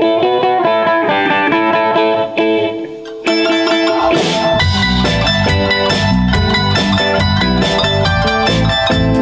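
Background music: a plucked guitar tune, with drums and bass coming in about four seconds in and carrying a steady beat.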